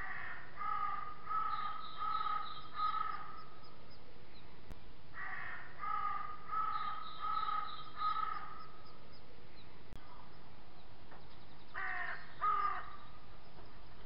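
Crows cawing in three runs of repeated caws: about five at the start, another five about five seconds in, and two more near the end. A steady faint hiss lies underneath.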